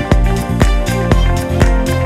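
Background music with a steady drum beat, about two hits a second, over a bass line.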